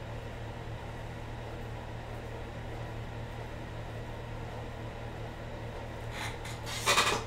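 Steady low electrical or fan hum with a faint hiss. Near the end comes a brief rustling noise.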